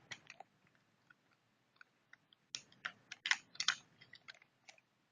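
Light clicks and knocks from the parts of a laptop side cooler being handled, fitted and tested for whether they snap together: a few isolated clicks, then a quick run of several about halfway through.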